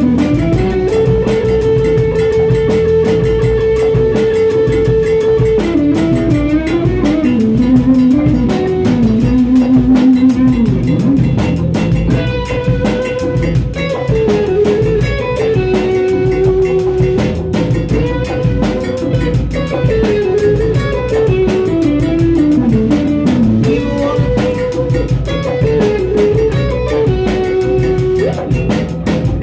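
A band playing together at a rehearsal: guitar, bass guitar and drum kit, with a melody of held and stepping notes on top.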